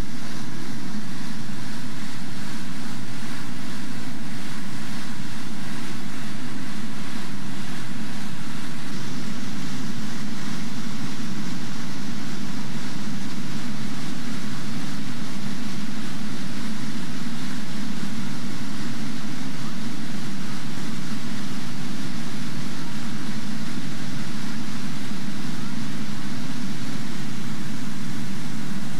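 Steady roar of whitewater rapids, a river in spate rushing over boulders.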